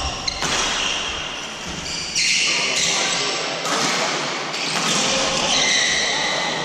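Badminton doubles play in a large hall: shoe squeaks on the court floor, sharp racket hits on the shuttlecock and players' voices, all echoing around the hall.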